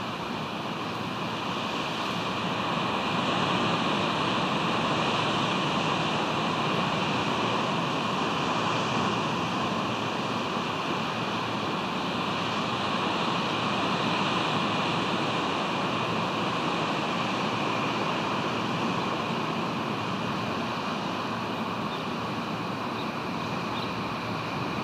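Steady rush of ocean surf with wind on the microphone, swelling a little a few seconds in and again near the middle.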